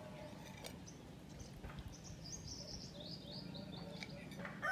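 A bird singing faintly: a short run of high chirps stepping down in pitch, starting about two seconds in, over a quiet outdoor background.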